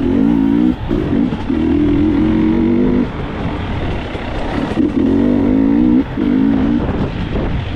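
Dirt bike engine, heard from the rider's seat, revving up and holding in bursts with short drops in between as the throttle is opened and closed along a rough trail.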